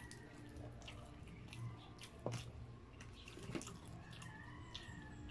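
Mouth-close eating sounds: chewing, and a plastic spoon and fork clicking and scraping against the food and the paper meal boxes, with two sharper clicks about two and three and a half seconds in.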